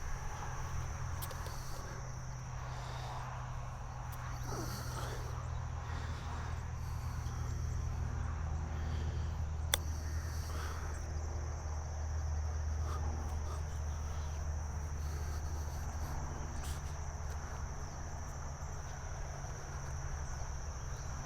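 Insects chirring in a steady high buzz, over a low rumble of wind on the microphone. A single sharp click about ten seconds in: a golf club striking the ball on a short chip shot.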